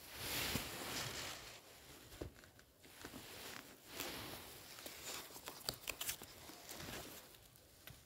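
Paper pages of a bound book rustling as they are flipped through, with a few sharp crisp page flicks about five to six seconds in.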